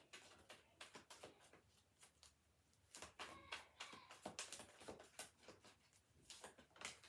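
Tarot cards being handled and shuffled by hand: faint, irregular card flicks, taps and rustles.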